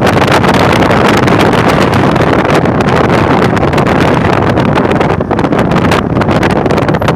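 Loud rushing noise of wind buffeting the microphone, gusting unevenly and easing briefly a few times near the end.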